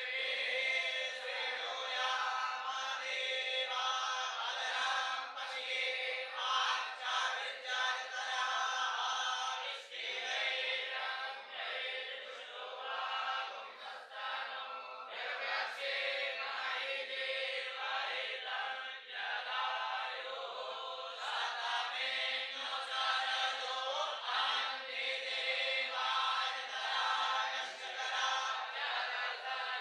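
A group of young Vedic students chanting Sanskrit mantras together in unison, without pause.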